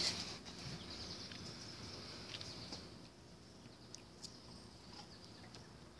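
Quiet outdoor ambience: a faint, steady, high insect drone with a few light ticks.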